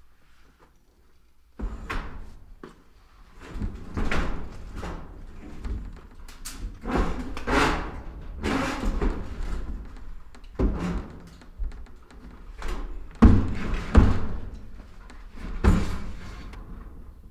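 Someone rummaging and handling a woven plastic sack: irregular rustling and scraping with dull knocks and thumps, starting about a second and a half in, with the hardest thumps near the end.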